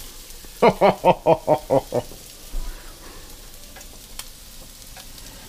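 Meatballs and onions sizzling in a heavy pan, still frying on the pan's stored heat with the burner turned off. About half a second in, a person lets out a quick run of six or seven short vocal bursts, then only the sizzle remains.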